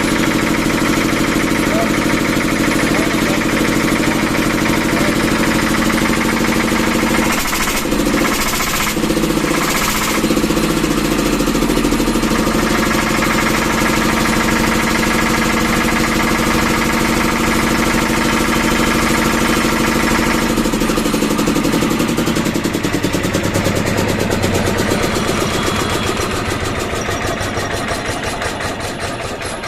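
Vishal Bharat 10 kW diesel generator engine running steadily. About twenty seconds in its note drops, and toward the end it grows quieter with a more distinct, pulsing beat.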